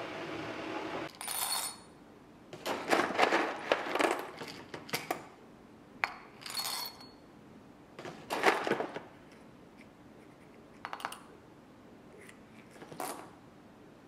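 Whole coffee beans dropped into a small glass jar standing on a coffee scale, in several separate bursts of quick rattling clicks, the dose being topped up a few beans at a time. A steady hum comes before the first burst, about a second in.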